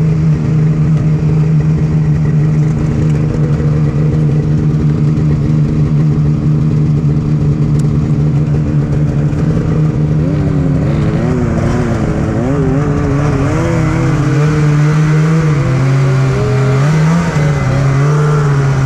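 Snowmobile engines running: one idles with a steady hum, and from about ten seconds in an engine is revved up and down in uneven surges. Near the end the main engine note drops and then climbs.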